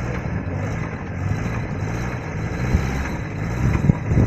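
Off-road 4x4 vehicle engine running steadily under load, with a few sharp knocks in the second half.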